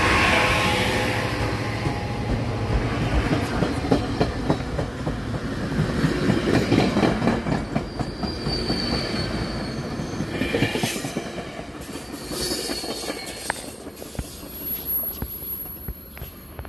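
Coaster commuter train passing close by: a deep rumble from the Siemens Charger SC-44 locomotives, then bilevel coaches rolling past with wheels clicking over the rail joints. High wheel squeals come in the second half, and the sound fades near the end.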